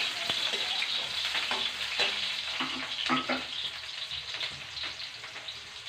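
Chopped garlic and onion sizzling as they fry in oil in a steel wok, with a spatula scraping and tapping against the pan now and then. The sizzle slowly eases toward the end.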